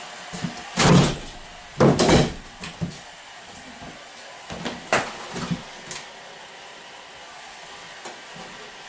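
A series of knocks and clunks, the two loudest about a second and two seconds in, then a few lighter knocks, over a steady hiss.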